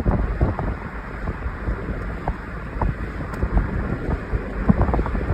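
Road construction machinery running at a work site: a steady low rumble with many short, irregular knocks and clanks, with wind buffeting the microphone.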